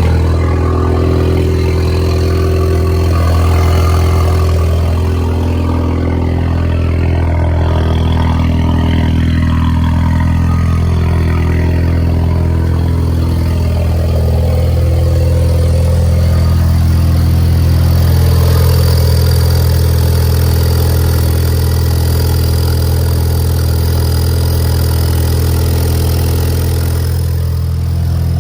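Ford Mustang EcoBoost's turbocharged 2.3-litre four-cylinder idling steadily, its exhaust deep and rumbly from a leak. The owner suspects the leak is at the flange gasket between the turbo and the downpipe.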